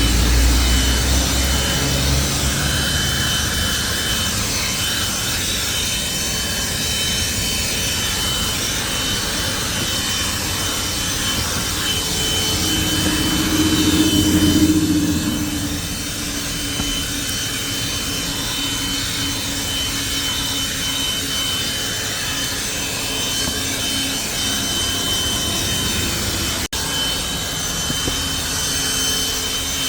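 Einhell cordless handheld vacuum cleaner running steadily, a constant motor noise with a thin high whine, as it cleans a car's interior. About halfway through its sound deepens and grows louder for a few seconds before settling again, and it cuts out for an instant near the end.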